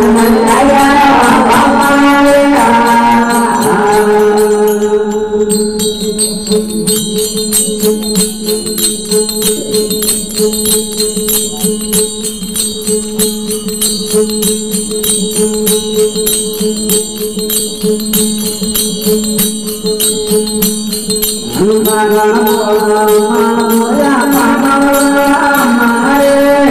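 Indian devotional folk song (desi bhajan) with a male voice singing over a steady drone and a fast percussion beat. After a few seconds the singing drops out for an instrumental stretch of drone and beat, and it comes back in about 21 seconds in.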